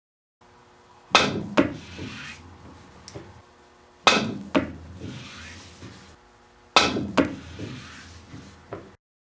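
Three pool shots, about three seconds apart, with a cue fitted with a hard Kamui Black leather tip striking the cue ball. Each sharp strike is followed about half a second later by a second sharp click, then fainter knocks.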